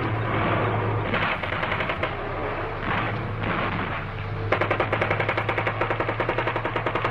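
AK-47 automatic rifle fire, sound effect: a dense crackle of gunfire at first, then about halfway through a steady rapid burst of roughly ten shots a second.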